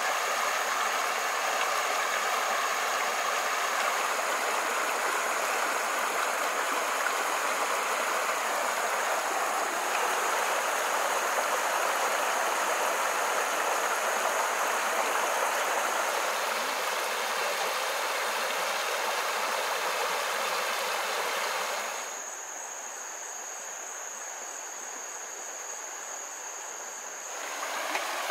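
Running water of a creek, a steady rushing hiss. About twenty-two seconds in it drops suddenly to a quieter, thinner wash, and the louder rush comes back near the end.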